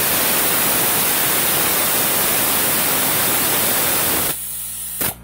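Steady loud hiss of gas escaping under pressure, cutting off about four seconds in, then a faint low hum and a short click.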